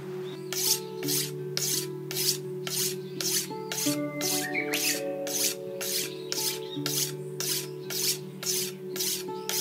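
Steel blade of a curved hand weeding sickle being sharpened by hand: a steady run of even scraping strokes, about two to three a second.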